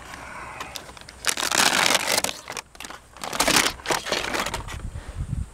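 Crinkling and tearing of the backing being peeled off a self-adhesive roofing gasket strip, in two loud bursts, with a low rumble near the end.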